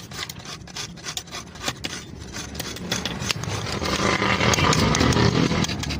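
Rasping, scraping sound of metal being worked, with many small clicks, growing louder from about halfway in over a steady low hum.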